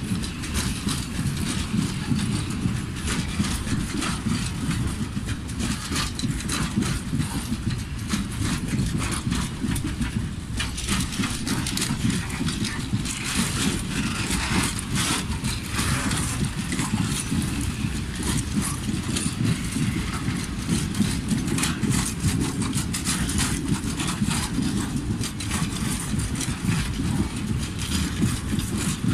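Loaded freight train of Eaos high-sided open wagons rolling past: a steady rumble of steel wheels on rail, with frequent sharp clicks and clacks from the wheels and bogies.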